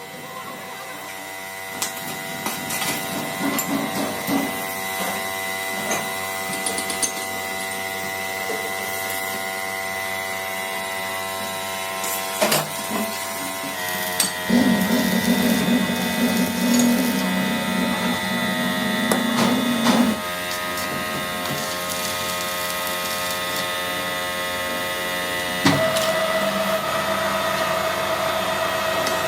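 Electric workshop machine running steadily with a humming, whining tone that changes pitch twice, with scattered sharp metallic clicks and knocks.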